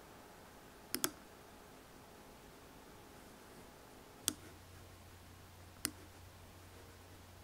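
Computer mouse clicking: a quick double click about a second in, then two single clicks about a second and a half apart later on, over faint room hiss.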